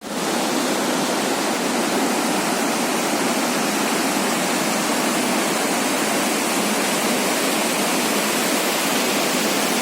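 A waterfall's water pouring down over rocks: a steady, even rushing.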